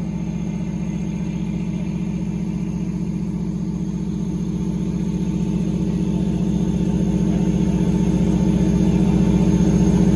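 Fire engines running steadily under pump load as they drive their pumps and deck guns, a continuous engine drone that grows gradually louder.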